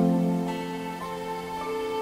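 Calm instrumental background music: sustained notes, with a new chord struck at the start and further notes entering about every half second.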